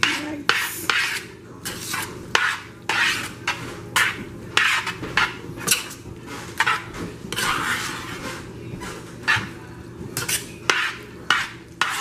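A utensil scraping and clinking against a stainless steel pan as cooked spaghetti is stirred and mixed, in short irregular strokes about one or two a second.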